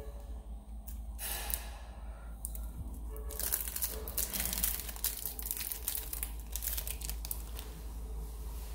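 Crinkling and rustling of wrapping being handled, with many small clicks. It comes briefly about a second in, then steadily from about three seconds in.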